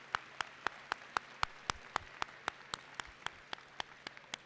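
Crowd applauding, with one close clapper's sharp claps standing out at a steady pace of about four a second. The applause thins toward the end.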